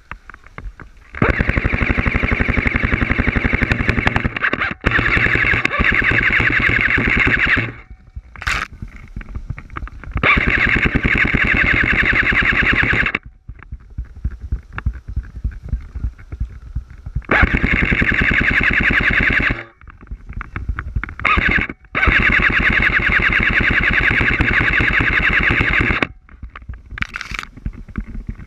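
Airsoft rifle firing on full auto in long sustained bursts, a rapid even stream of shots. There are four main bursts, the longest about six seconds, with a couple of short spurts between them.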